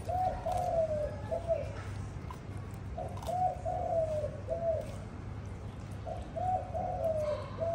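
A dove cooing, a phrase of several soft notes repeated three times, about every three seconds, over a steady low hum.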